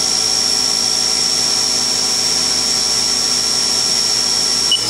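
The freshly replaced spindle of a Haas VF0E vertical machining center runs at its top speed of 7,500 RPM, giving a steady, high, even whine that sounds healthy. A short click comes just before the end.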